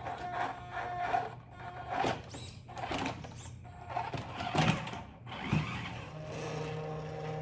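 Small electric motor and gearbox of a scale RC crawler truck whining, with irregular knocks and scrapes as it works over obstacles; about six seconds in, it settles into a steadier hum.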